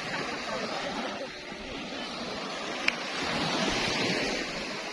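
Sea surf washing and breaking on a beach, a steady hiss of waves, with a single sharp click about three seconds in.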